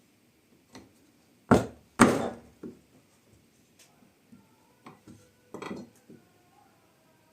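Sharp wooden knocks: two loud strikes about half a second apart, then lighter taps and a short cluster of knocks a little over five seconds in.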